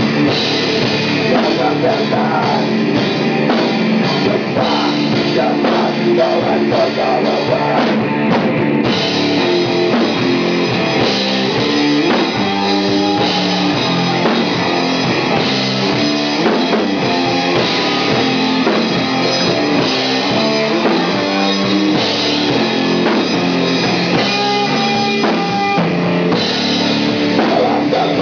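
Stoner rock band playing live: electric guitar and drum kit with cymbals, loud and continuous.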